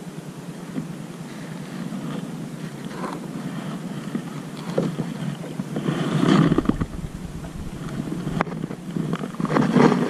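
Wind buffeting the microphone on a kayak at sea, with water lapping at the hull, rising in two louder gusts about six seconds in and near the end. A single sharp click sounds about eight seconds in.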